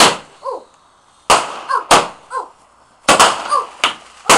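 Fireworks going off in quick succession: about six sharp bangs in four seconds, some followed by a brief crackling hiss.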